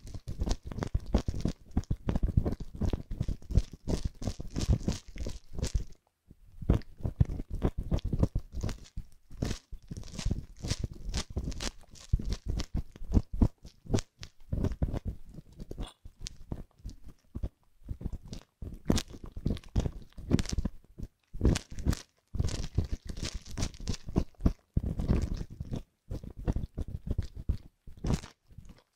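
Metal tweezers scratching and picking inside the ear canal of a silicone ear model on a binaural microphone: close, dense crackly scratching in quick runs, broken by short pauses.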